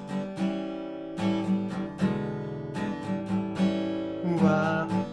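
Blues backing music: an acoustic guitar strumming chords in a steady rhythm, with no singing.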